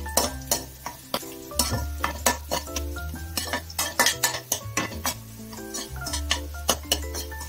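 Metal spatula stirring and scraping chopped garlic and sesame seeds around a metal kadai, at about two or three strokes a second, with the garlic frying in oil to a light brown.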